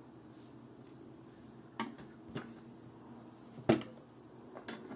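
Four light, irregular clicks from a steel watch case being handled and shifted on a cushion, the loudest a little past the middle, over a faint steady low hum.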